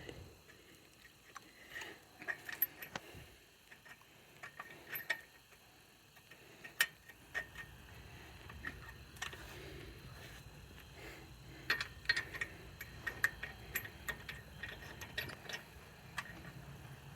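Scattered light metallic clicks and clinks of lug nuts being handled and threaded onto wheel studs by hand. A faint low steady hum comes in about seven seconds in.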